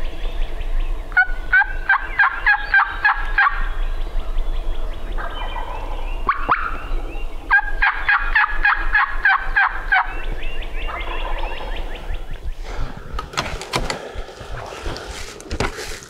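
Wild turkey gobbler gobbling twice, each gobble a rapid rattling run of notes about two seconds long, the second some six seconds after the first. Rustling and thumps follow near the end.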